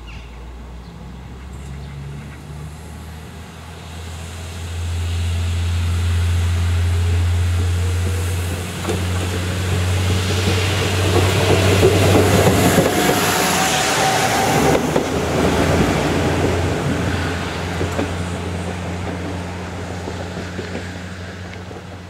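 PESA SA103 diesel railbus pulling away and accelerating past, its engine drone and a rising whine growing louder as it approaches. It is loudest as it passes, then fades as it runs off down the line.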